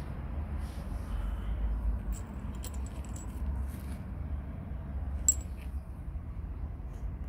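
Small metal figurines clinking against each other as they are picked up and handled: a few light clicks, then one sharper click about five seconds in, over a steady low rumble.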